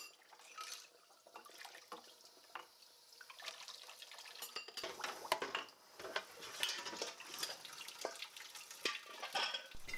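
Tap water running into a stainless steel sink while dishes are rinsed by hand, with scattered clinks and knocks of crockery against the sink and each other. This is the first rinse with plain water, before any washing-up liquid.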